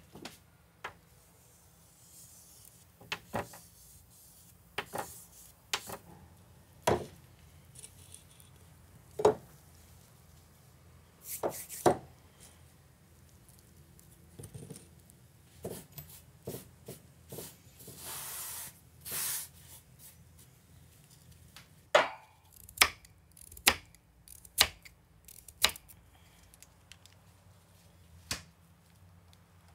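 Kitchen handling sounds: a scattered run of sharp clicks, taps and knocks as jars and utensils are picked up and set down on a counter, with a brief hiss a little past halfway.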